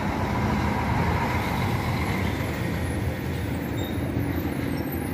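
Intercity coach's diesel engine running as the bus moves off slowly, over steady traffic noise.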